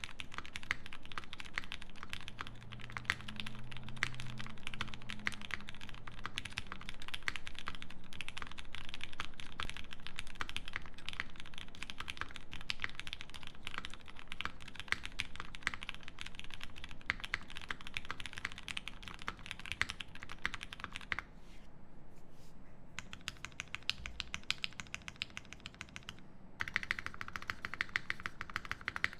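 Steady, rapid typing on a custom mechanical keyboard with lubed Cherry Hyperglide Black linear switches, a polypropylene plate, GMK keycaps and a tape mod under the PCB. The keystrokes thin out and turn quieter for a few seconds past the two-thirds mark, then pick up again.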